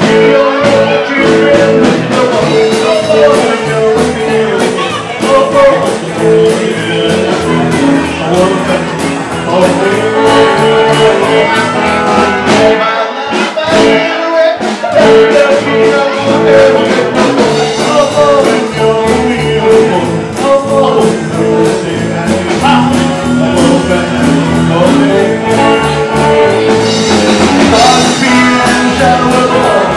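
Live band playing an upbeat blues-flavoured rock and roll number on upright bass, electric guitar and drums, with a lead line played through a hand-cupped microphone in long held notes.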